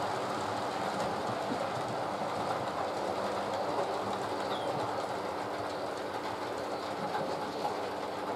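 Model train running on the layout's track: a steady rumble and clatter of wheels on rail over a constant hum.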